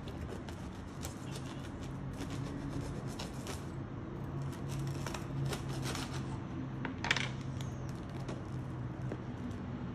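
Knife sawing through a crusty, sesame-topped barbari loaf: a run of crisp crackles and crunches as the crust breaks, with a sharper crack about seven seconds in, over a low steady hum.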